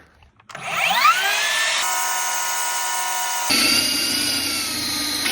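Band sawmill starting up, its pitch rising over about a second to a steady whine. About three and a half seconds in the sound changes abruptly and turns noisier as the blade goes into the red cedar log.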